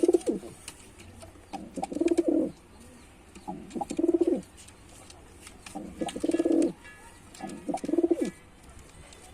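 Male domestic pigeon cooing: a series of low, throbbing coos, each under a second long, repeated about every two seconds.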